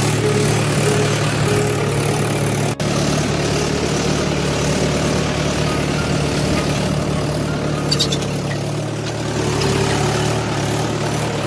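Tractor engine running steadily while the tractor pulls a tillage implement through a ploughed field, heard from the driver's seat, with a momentary break about three seconds in.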